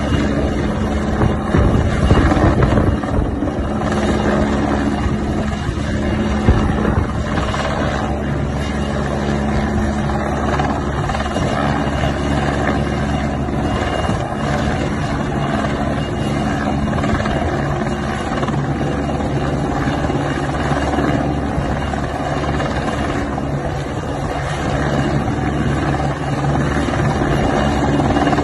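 Rescue helicopter hovering and manoeuvring close by, its rotor and turbine making a steady drone, with extra low gusty rumble on the microphone in the first few seconds.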